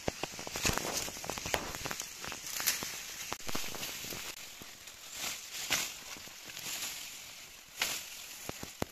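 Broom grass leaves rustling and stalks snapping as the flowering stems are plucked by hand: irregular crackles and sharp snaps over a rustle of leaves, with the loudest snaps near the end.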